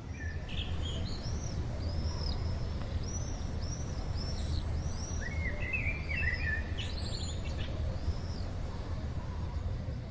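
Small birds chirping, a string of short arched chirps with a denser cluster of calls in the middle, over a steady low rumble of outdoor noise.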